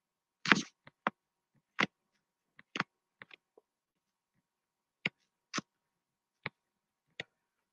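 About a dozen short, sharp clicks and taps at irregular intervals, the loudest about half a second in, with a pause of a second or so in the middle, like small handling or computer clicks near the microphone.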